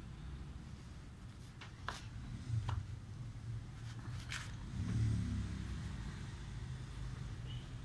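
Steady low rumble that swells about five seconds in, with a few sharp clicks and rustles from a knife working through a fish on a plastic sheet.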